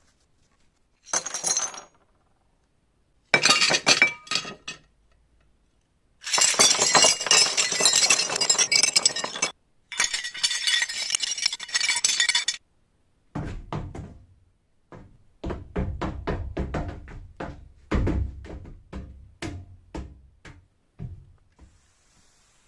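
Glass clinking and breaking, likely made for Foley: short bursts of clinking, then two long stretches of crunching and rattling shards. In the second half comes a run of dull knocks and thuds, one after another.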